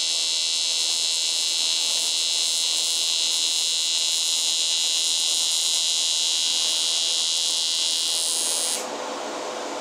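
AC TIG welding arc from a Primeweld 225X on 1/8-inch aluminum flat bar: a steady high-pitched buzzing hiss. It cuts off about nine seconds in as the arc is broken, leaving a softer steady noise.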